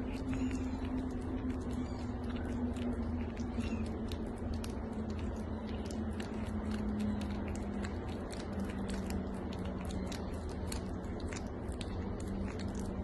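A kitten licking and chewing, with many quick wet smacking clicks, over a steady low hum.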